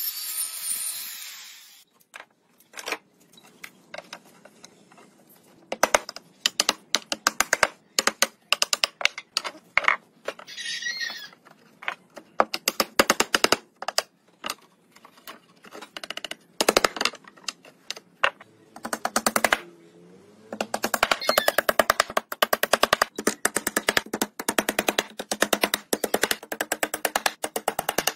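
A circular saw finishes cutting pallet wood in the first two seconds. Then come rapid runs of sharp clicks and knocks as the pallet-wood boards are fastened together, fastest and densest near the end.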